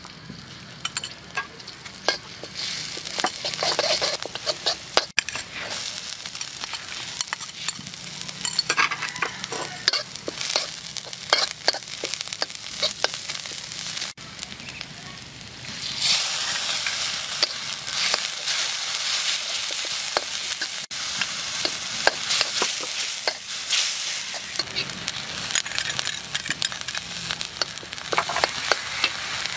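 Chili paste and egg sizzling and frying in hot oil in a wok, with a steel spatula scraping and clicking against the wok as it is stirred. The frying gets louder a little past halfway.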